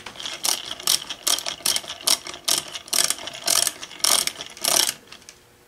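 Ratcheting screwdriver clicking in short rhythmic bursts, about three a second, as a screw is driven into a ring amplifier's housing; the clicking stops about five seconds in.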